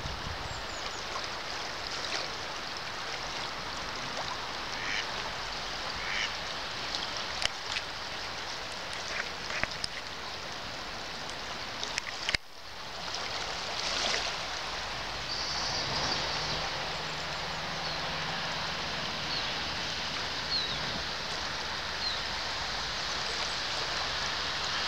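Ducks quacking now and then over the steady rush of a swollen, fast-flowing river.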